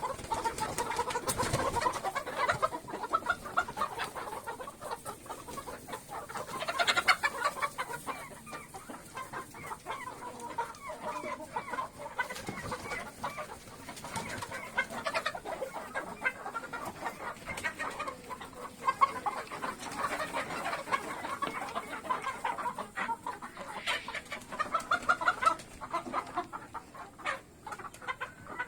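A flock of farm chickens clucking and calling continuously, many birds overlapping.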